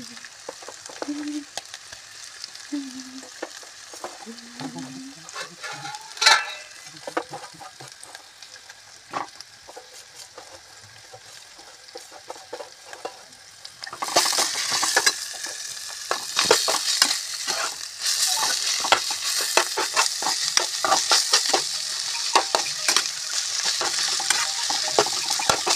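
Steamed kachnar buds frying in a kadhai with onion, garlic and turmeric, stirred and scraped with a metal slotted spatula. The first half is fairly quiet with scattered scrapes and clicks. About halfway through the sizzle turns loud and dense under rapid spatula scraping.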